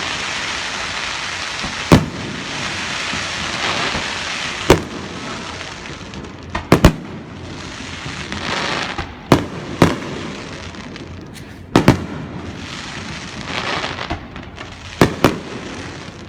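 Aerial fireworks exploding: sharp bangs every second or two, several in quick pairs, over a continuous hiss between the bursts.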